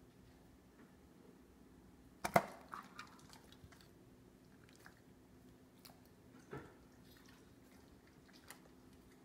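A dog biting into a steamed asparagus stalk end with one sharp crunch about two seconds in, followed by a few faint chewing clicks and another softer crunch a few seconds later.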